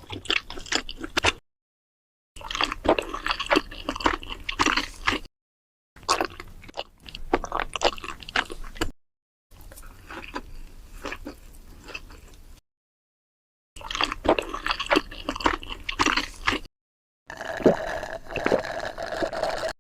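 Close-miked ASMR eating sounds: wet chewing and biting with crunchy, squishy mouth noises, in six short clips separated by moments of dead silence.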